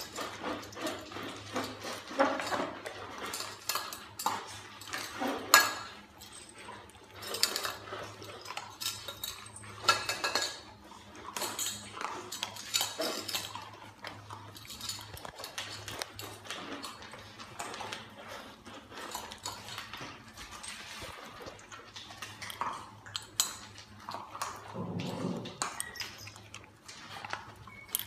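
Several dogs eating dry kibble from food bowls on a hard floor: irregular clinks, knocks and rattles of the bowls being nosed and pushed about.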